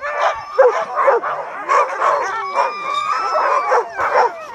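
A pack of harnessed sled dogs barking, yipping and howling all at once, a dense overlapping chorus of short calls with a longer drawn-out howl in the middle: the excited racket of a team eager to start running.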